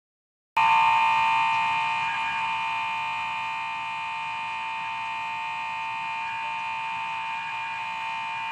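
A steady electronic buzzing tone of several held pitches, starting suddenly about half a second in after a gap of silence.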